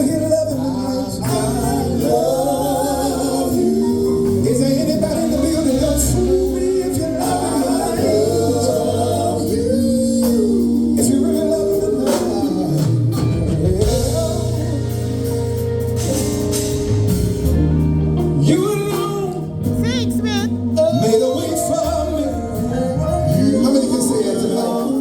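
Gospel vocal group singing live, voices moving over steady low instrumental notes underneath.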